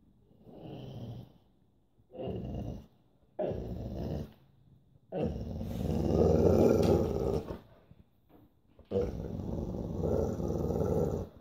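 Dog growling and grumbling in five separate bouts, the longest in the middle. It is impatient, demanding-to-be-fed vocalising rather than aggression.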